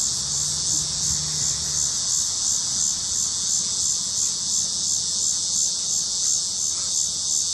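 Steady high-pitched insect chorus, pulsing evenly a few times a second.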